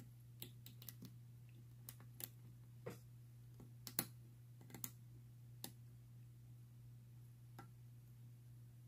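Faint, irregular clicks and taps of a metal lock pick working the pin stack of a Best padlock's interchangeable core under a tension wrench, the loudest click about four seconds in.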